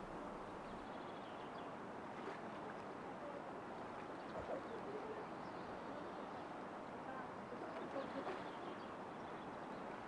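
Steady rush of a shallow, rippling river flowing, with water moving around the legs of a group wading across it.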